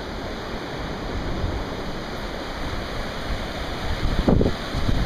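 Sea surf breaking and washing up a sandy beach, with wind on the microphone and a brief louder rumble about four seconds in.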